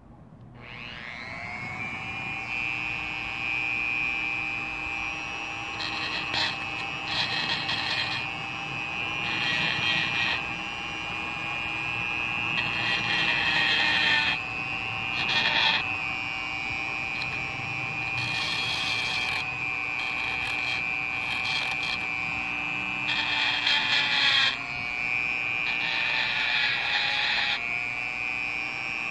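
A handheld rotary tool with a sanding drum spins up about half a second in and runs at a steady high whine. It gives repeated short bursts of grinding as the drum sands a cast copper knife guard. Once, late on, the pitch sags under load and recovers.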